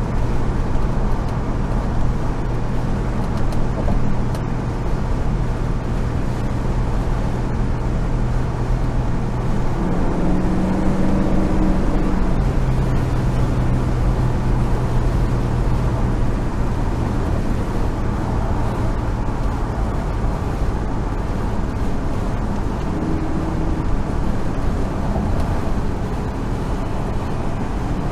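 1970 Chevrolet Monte Carlo's V8 engine running steadily at freeway speed under continuous road and wind noise, its note shifting in pitch briefly about ten seconds in.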